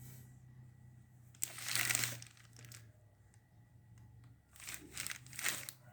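Handling noise of a jigsaw and its power cord being moved about: rustling, crinkling sounds in two bursts, about a second and a half in and again near the end, over a faint steady low hum.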